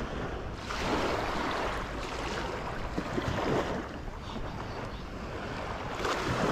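Shallow water sloshing and wind rushing over the microphone. The sound swells about a second in, then eases to a steady rush.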